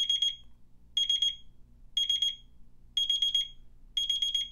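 Casio GQ-200 'Muscle Time' alarm clock sounding its alarm at the set time. It gives a short burst of rapid high-pitched beeps about once a second, five bursts in all.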